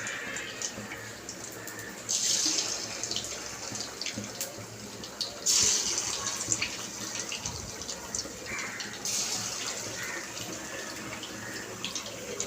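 Marinated chicken pieces sizzling in hot oil: a steady frying hiss that flares up sharply three times, about every three and a half seconds, as more pieces go into the oil.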